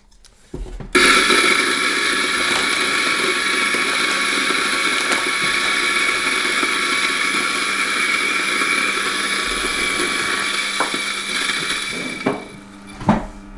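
MiiCoffee DF54 flat-burr espresso grinder grinding a 16 g single dose from a cold start. The motor and burrs run with a steady whine from about a second in, die down near the end, and are followed by a short knock.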